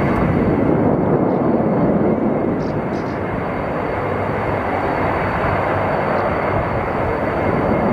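Jet noise of a Sukhoi Su-35S fighter in display flight: a steady, dense rushing sound from its twin turbofan engines, a little louder in the first two seconds, with a faint steady high whine above it.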